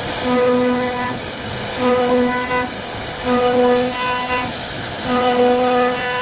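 CNC wood-carving router cutting wood: a steady hiss with a humming spindle tone that swells at the same pitch about every second and a half as the bit passes through the wood.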